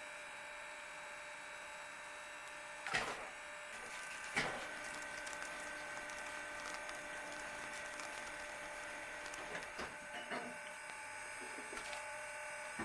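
Faint steady electric hum with a few thin tones from an electric tire regrooving tool with a heated blade cutting into the tread rubber, with a couple of light knocks about three and four and a half seconds in.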